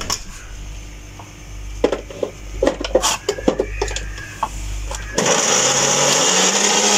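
A few clicks and knocks, then about five seconds in an electric food chopper starts up and runs with a loud whir. It is grinding green chutney of coriander, green chillies, ginger, garlic and water.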